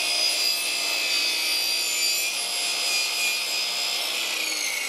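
Chop saw running at full speed with a steady high whine while its blade cuts into plywood. Right at the end the motor is switched off and its pitch starts to fall as the blade winds down.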